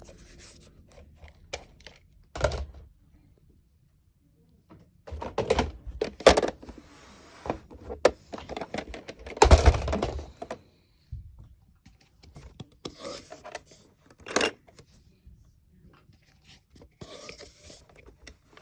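Plastic Nerf blaster, magazine and foam darts being handled during reloading: scattered plastic clicks and knocks, with a thunk a couple of seconds in, a busy cluster of louder knocks in the middle and another sharp knock later on.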